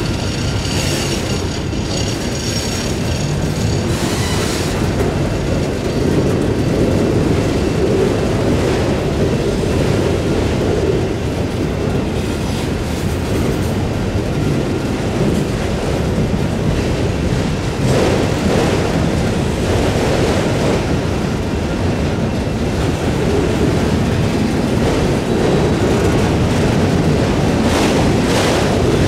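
A freight train rolling past at close range: a steady, loud rumble of steel wheels on rail, with some clickety-clack. A faint high ringing tone fades out about four seconds in.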